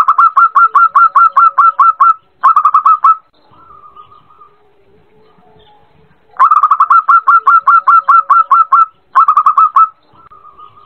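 Zebra dove (perkutut) cooing twice in its rapid staccato pattern, each time a quick run of about a dozen notes, then a short burst and a softer drawn-out coo. It is the call of a female calling a male.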